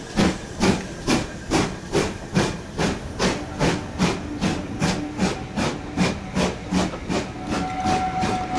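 GWR Manor class 4-6-0 steam locomotive 7828 pulling away under steam: a steady rhythm of exhaust chuffs, about two to three a second. The chuffs quicken slightly as the train gathers speed and grow softer as it draws away.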